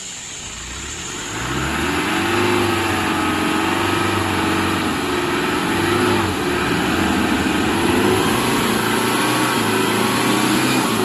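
Land Rover Discovery's Tdi turbo-diesel engine coming up about a second in and revving under load, its pitch rising and falling as the 4x4 pushes slowly through deep mud.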